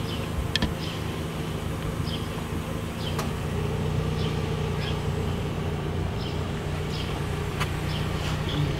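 Steady low mechanical hum with a few short clicks.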